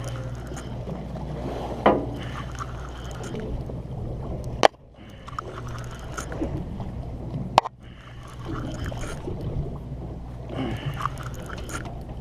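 Boat engine running with a steady low hum, with faint voices in the background. Two sharp clicks about four and a half and seven and a half seconds in, each followed by a brief dip in the sound.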